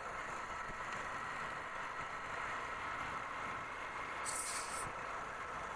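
Motorcycle running at a steady cruising speed, its engine mixed with wind and road noise as picked up by a camera on the bike. A short hiss comes about four seconds in.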